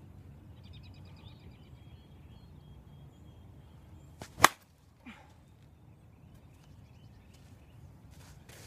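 A single sharp crack about four and a half seconds in: an Avarice G2 slowpitch softball bat striking a softball off a batting tee. A fainter knock follows about half a second later.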